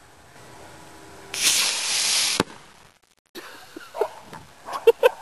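Model rocket motor igniting about a second in: a loud rushing hiss lasting about a second, cut off by a single sharp crack. After a short gap, several sharp pops mixed with voices near the end.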